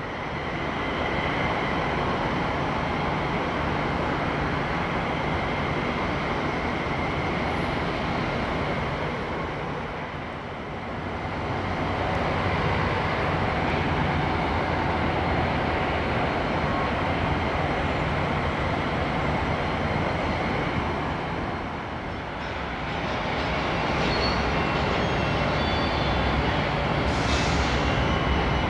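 Diesel freight train approaching, a steady rumble of locomotive and wheels on rails, with the deep engine sound getting stronger near the end.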